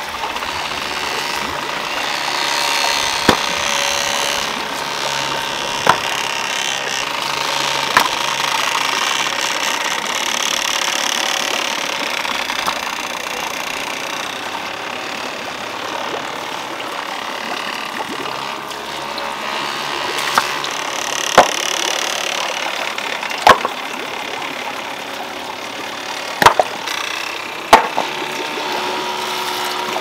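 Stones knocking against one another as they are laid to line a ditch: about eight sharp knocks, spaced a few seconds apart and bunched towards the end, over a steady background hiss.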